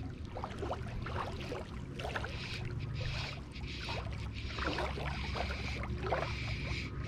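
Small waves lapping and gurgling against the rocky shoreline in irregular splashes, over a steady low hum from a distant boat motor.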